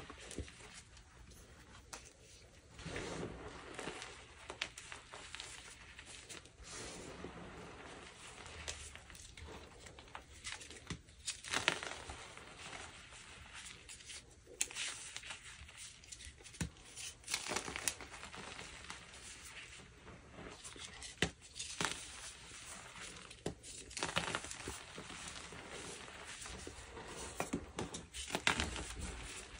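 Blocks of dyed BSN gym chalk crushed and crumbled by hand: irregular crunchy crackles and snaps over soft powdery crumbling, with several sharper cracks spread through.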